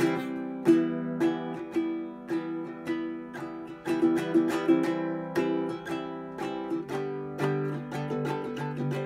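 Ukulele played solo, chords picked and strummed at an easy pace with a new note about every half second; a lower note rings underneath in the last couple of seconds.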